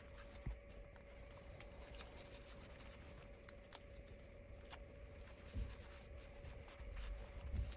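Faint, sparse clicks and light taps from handling an iPad as its replacement display is pressed down around the edges into the frame, over a faint steady hum.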